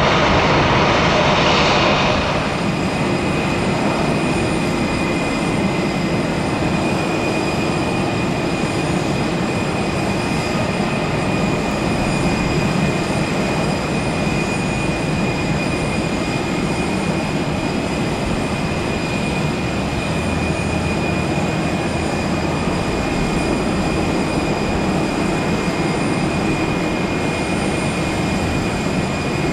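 Airbus A320 jet engines running at low taxi power: a steady rumble with a constant high whine. It is louder for the first two seconds, then settles a little lower.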